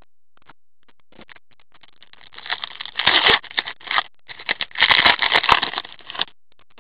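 A trading card pack's wrapper crinkling and tearing as it is opened by hand, in irregular rustling bursts starting about two seconds in.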